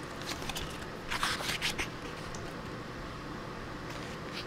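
Paper pages of a photo brochure rustling as a page is turned, in a short cluster of rustles a little after a second in, over faint steady room hiss.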